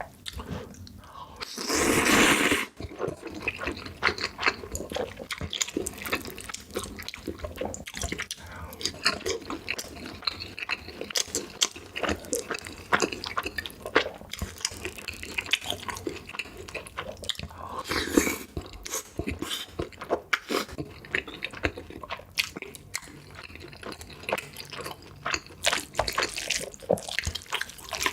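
Close-miked eating sounds: wet chewing and mouth smacking in dense, irregular clicks, with a louder noisy burst about two seconds in and another at around eighteen seconds.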